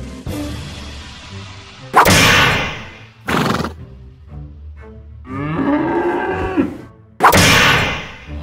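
Cartoon-style sound effects for the toy play: a loud crashing clang with a ringing tail about two seconds in, a shorter hit just after, a cow mooing around the middle, and another loud clang near the end.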